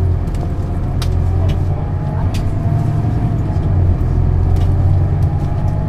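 Scania Citywide LE (CK250UB) city bus's diesel engine running on the move, heard on board: a steady low drone with a faint whine that wavers slightly in pitch. A few sharp rattles or clicks come about one, two and a half and four and a half seconds in.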